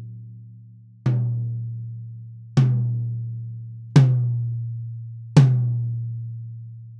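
Pearl high rack tom struck with a drumstick four times, about one and a half seconds apart, the hits getting louder. Each hit rings out with a long, open, resonant decay.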